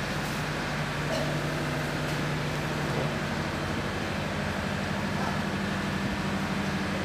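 An engine running steadily at idle: a low, even drone.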